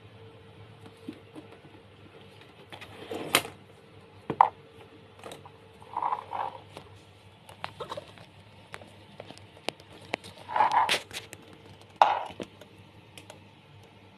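Handling sounds of a leather handbag: scattered clicks, taps and rustles as it is moved about and its flap opened, with a few short, louder scuffs.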